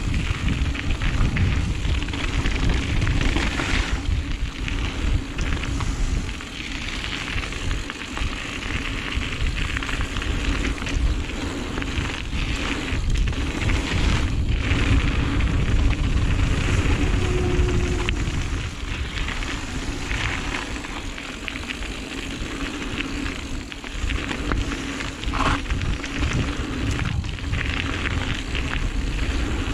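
Wind rushing over a GoPro's microphone while a Giant Reign full-suspension mountain bike descends a dirt flow trail, its tyres crackling over the ground and its frame and chain rattling, with frequent short knocks from bumps.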